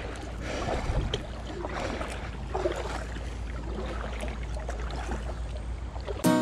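Double-bladed kayak paddle strokes dipping and splashing in the river, over a steady low rumble of wind on the microphone. Acoustic guitar music cuts in at the very end.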